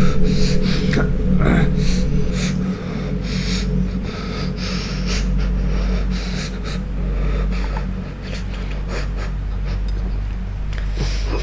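A man gasping and panting in panic, ragged breaths in quick succession, over a steady low drone.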